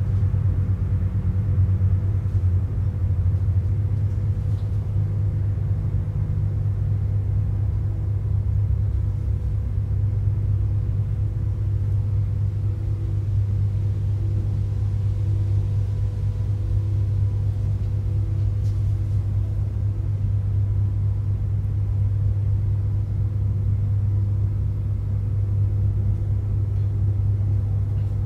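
Steady low rumble with a thin, even hum over it, like distant traffic or machinery.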